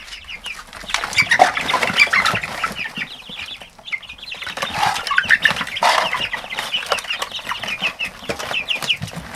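A brood of young chicks peeping without a break, many short falling chirps overlapping. There are louder flurries of wing flapping and scuffling about a second in and again around five to six seconds in.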